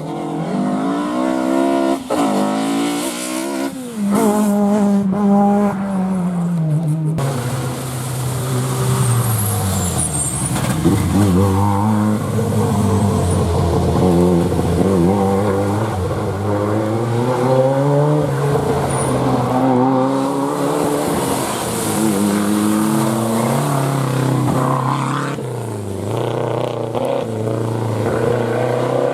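Rally car engines revving hard, their pitch climbing and dropping again and again with gear changes and lifts off the throttle. The sound changes abruptly about seven seconds in.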